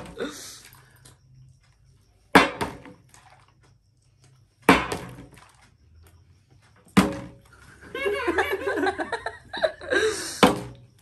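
Partly filled plastic soft-drink bottle being flipped and landing on a glass tabletop: four sharp thuds, roughly two seconds apart. A voice, likely laughter, is heard between the last two landings.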